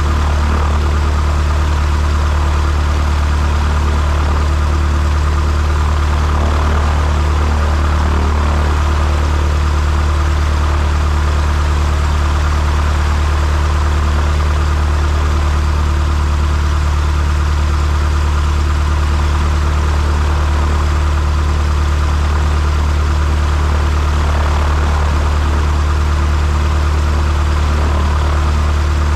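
A steady low mechanical drone, unchanging in pitch and level throughout.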